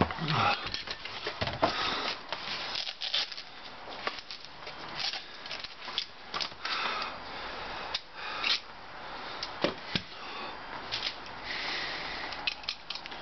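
Handling noise: rubbing, rustling and irregular clicks as a black object is fiddled with in the hands, with breathing through the nose.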